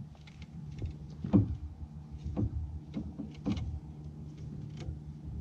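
Handling sounds of a kayak paddle as a snagged fishing line is wrapped around its rubber-gripped shaft: a few short knocks and rubs, the loudest about a second and a half in, over a steady low hum.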